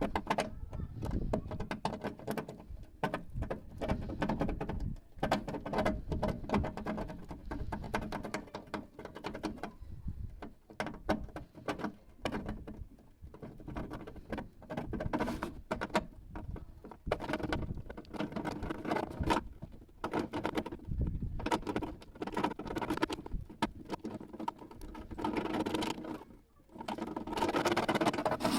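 Irregular light clicks, taps and scratching: hands working plastic pieces and tools on a workbench during a plastic repair with a soldering iron.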